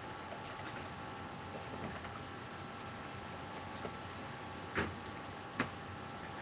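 Sparse keystrokes and clicks on a laptop keyboard, with two sharper clicks a little under a second apart near the end, over steady room noise and a faint hum.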